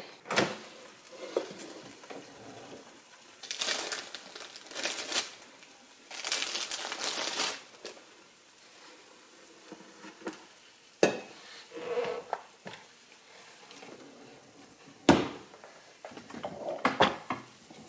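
Power AirFryer XL's basket being pulled out of the fryer, with scraping and rustling handling noises, then set down on the counter with a sharp knock about fifteen seconds in.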